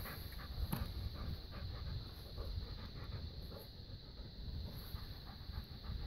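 Dog panting close by, quick and even, about three or four breaths a second.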